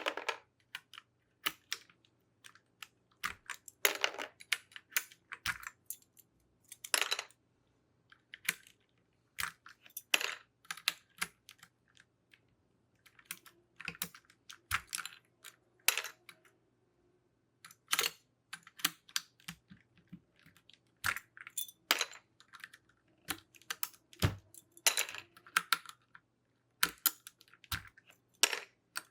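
Plastic keycaps being pulled off a keyboard one after another: irregular sharp clicks and light plastic clatter, in small clusters with short pauses between.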